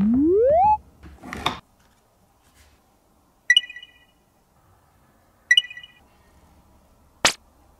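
A string of short added sound effects. A whistle-like tone glides up in pitch at the start. A brief rattling burst follows about a second in, then two bright ringing dings two seconds apart, and a sharp swish near the end.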